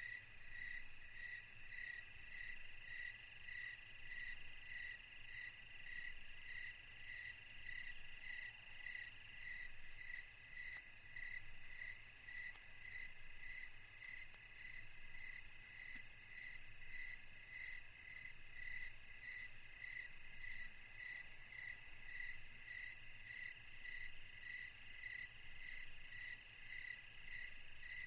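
Insects chirping faintly: an even pulsing chirp about one and a half times a second over a steady high trill, typical of crickets.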